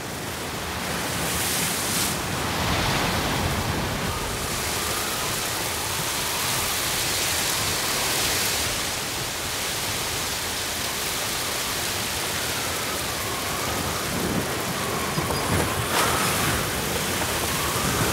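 Hurricane wind and heavy rain: a dense, steady rush of noise with gusts swelling and easing, and a faint howl wavering in pitch. A few sharp knocks come near the end.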